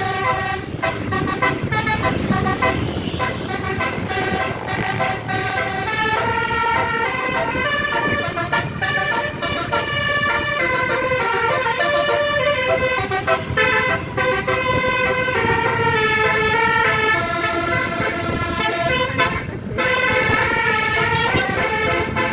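Tour bus telolet horn, a multi-tone horn, playing a melody of stepped notes over the bus's low engine and road rumble.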